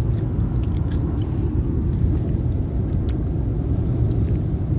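Steady low rumble of road noise inside a moving car's cabin, with a few faint short clicks over it.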